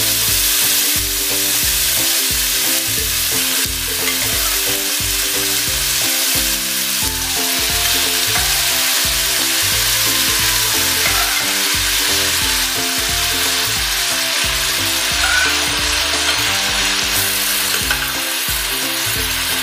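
Pieces of lamb sizzling steadily as they fry in a pan with sliced onions, garlic and celery.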